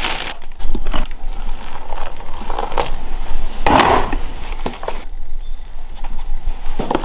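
Food preparation with plastic containers: a plastic bag and a plastic food tub handled while instant oats are tipped in and whey protein powder is scooped on top, giving irregular rustling and crinkling with a few light knocks and a louder burst of rustling about four seconds in.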